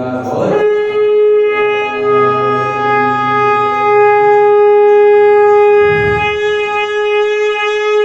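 Conch shell (shankh) blown in one long, steady note, sounded at the close of puja chanting. It starts about half a second in and holds at one pitch throughout.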